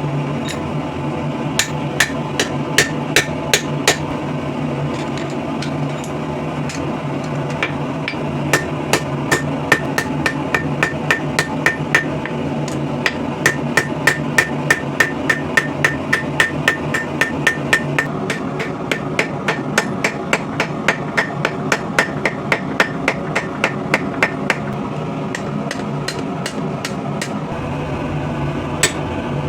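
Hammer striking steel on an anvil, forging a broken wrench into a throwing knife: runs of sharp ringing blows, about three a second, with a pause about five seconds in and only a few blows near the end.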